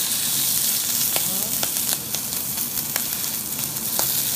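Thick rump steak searing in oil in a hot cast-iron pan: a steady sizzle with scattered sharp crackles.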